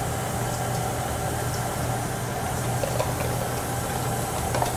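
KitchenAid stand mixer running on low speed with a steady motor hum, its wire whisk beating donut batter as liquid is poured in.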